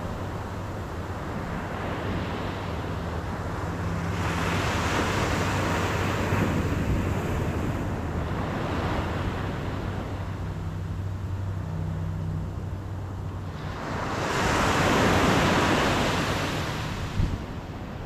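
Atlantic Ocean surf breaking on a beach: waves wash in as swells of rushing noise that rise and fall, the biggest about fourteen seconds in and fading by seventeen. A steady low hum runs underneath.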